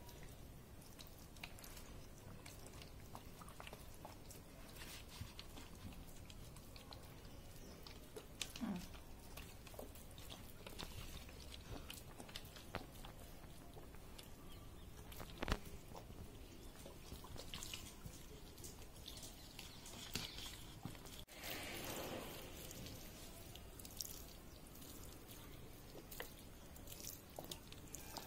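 Faint patter and trickle of water sprinkled from an upturned plastic bottle onto potting soil, with scattered small ticks and a louder click about halfway through.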